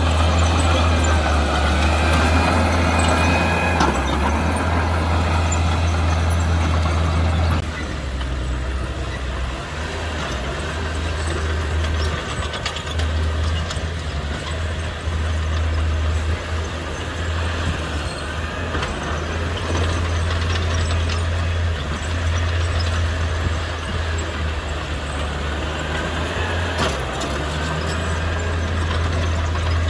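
Diesel engine of heavy earthmoving machinery running steadily with a deep hum, dropping in loudness about a quarter of the way through, with faint squeals over it.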